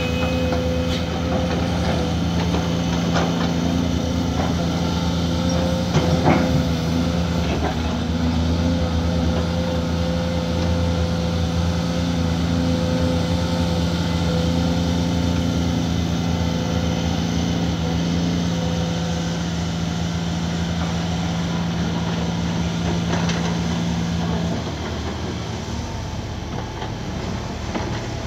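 Heavy diesel engines of a Cat 340D hydraulic excavator and a dump truck running steadily while the excavator loads coal into the truck, with a loud clatter about six seconds in. The engine note drops after about 24 seconds.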